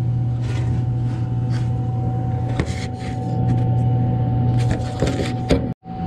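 Steady low hum of running walk-in cooler refrigeration machinery, with a faint steady whine above it. A few light clicks and knocks of parts being handled come through, most of them near the end, just before a brief dropout.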